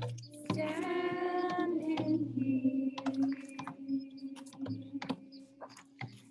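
Voices singing a short phrase, then one long held note, with scattered irregular clicks and taps.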